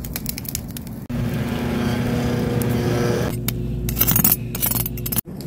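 Charcoal fire crackling, then a steady motor-like hum for about two seconds, then sharp crackling clicks around a spit-roasted pork belly roll (cebuchon); the sound changes abruptly between the parts.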